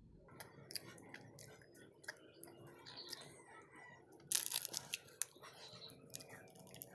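Close-miked eating sounds: faint chewing with scattered small clicks, and a louder crunch about four seconds in.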